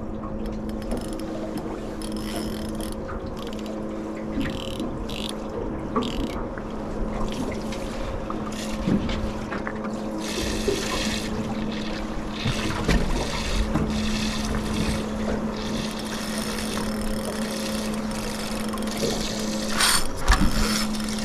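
Small boat drifting at sea: water washing around the hull under a steady low hum, with a few light clicks.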